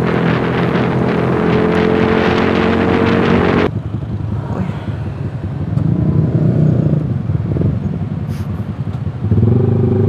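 A Yamaha R15 V3's 155 cc single-cylinder engine running at cruising speed, with wind rushing over the microphone. About four seconds in, the rushing and engine drop off sharply as the bike slows, leaving the rumble of motorcycle engines idling alongside. One of them gets louder near the end.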